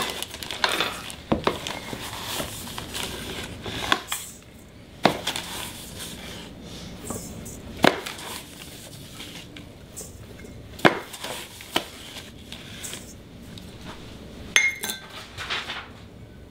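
Sugar scooped from a plastic container with a measuring cup and poured into a stainless steel mixing bowl: a grainy rustle in the first few seconds, then scattered sharp clinks and knocks of the cup against the bowl and container.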